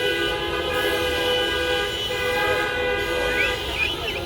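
Many car horns honking at once, several long held tones of different pitches overlapping, some dropping out and coming back, with short gliding whistle-like sounds near the end.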